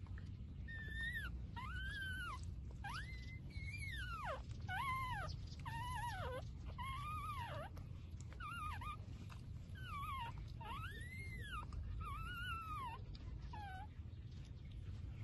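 Young puppies whining: a string of about a dozen high, rising-then-falling whimpering cries, each about half a second to a second long.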